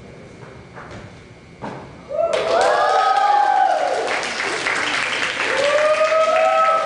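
A single thump about a second and a half in. Then an audience bursts into applause and cheering, with rising and falling whoops twice over the clapping.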